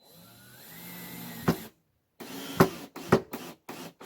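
Power drill driving screws into wood: one longer run that swells and ends with a sharp click, then several short bursts.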